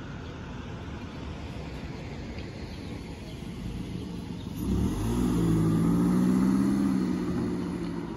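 A passing car's engine: its note rises about halfway through as it pulls away, then holds steady for a few seconds and eases off near the end. Underneath is a low steady rumble of background traffic.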